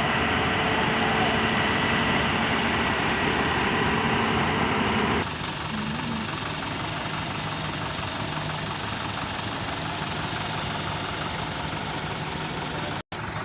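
Diesel engine of a truck-mounted concrete boom pump running steadily. The sound drops abruptly to a lower level about five seconds in and breaks off for an instant near the end.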